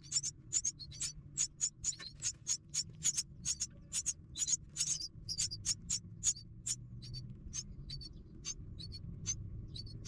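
Nestlings begging with rapid, high-pitched chirps, about three or four a second, growing sparser over the last few seconds, over a faint low rumble.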